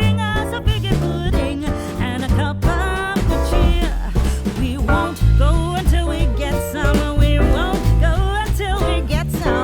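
Background music: a song with a singing voice over guitar and a steady bass beat.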